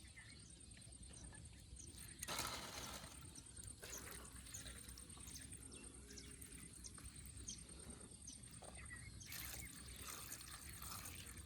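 Faint wet pouring sounds of liquid going into a homemade fish-bait mix, with scattered small ticks and two short louder noisy stretches, about two seconds in and near the end.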